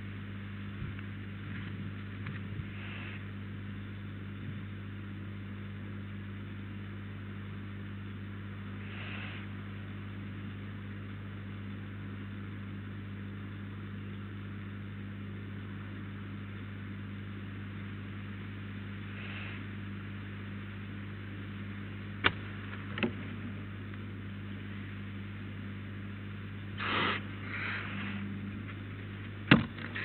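Steady electrical hum and hiss from the nest-box camera's microphone, with a few faint short hisses. Near the end come scratchy scrapes and a sharp knock as a barn owl lands on the wooden perch.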